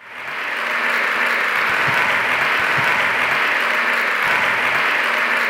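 Audience applause, fading in quickly and then holding steady.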